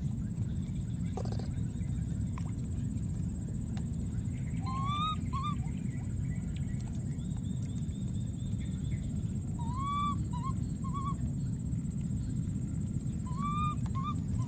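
A baby monkey crying: three short whimpering calls that rise and then fall, each followed by a couple of quick chirps, about five, ten and thirteen seconds in. Under them are a steady low background noise and a constant thin high whine.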